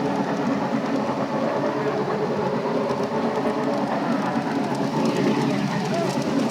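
Model train running on the miniature layout, with the display's train sound effects playing steadily.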